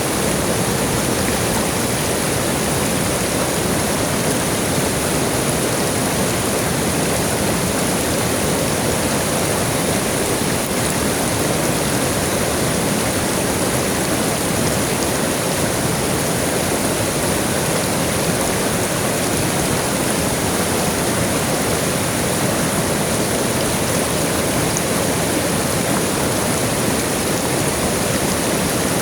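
River water flowing: a steady, even rushing that does not change.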